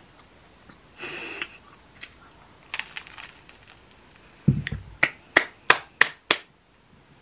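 Hands clapping five quick, evenly spaced claps near the end. Earlier there is a short crisp rustle about a second in and a low thump.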